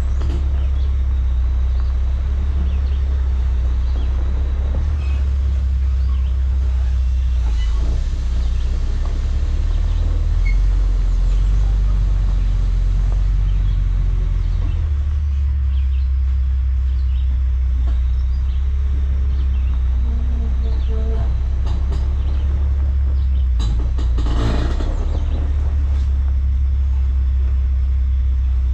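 Diesel engine of a heavy tri-axle dump truck running at low speed as it backs up on gravel, a steady low rumble that drops in pitch for a few seconds in the middle. A short hiss sounds near the end.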